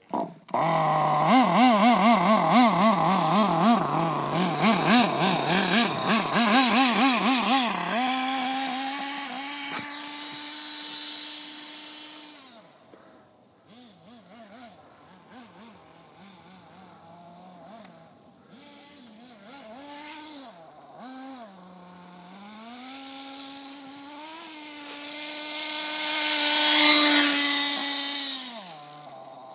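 Electric motor of a radio-controlled toy car whining, loud and wavering rapidly up and down in pitch for the first several seconds as the throttle is worked. It then settles into a fainter, steadier whine that dips and rises, swells louder and higher near the end, and then drops away.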